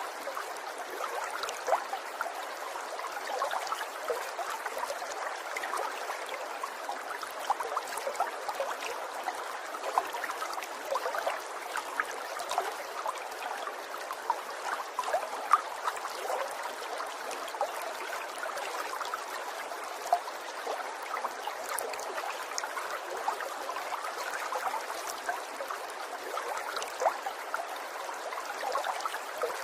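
Water trickling steadily, with a continuous light babble and small gurgles and splashes flickering through it.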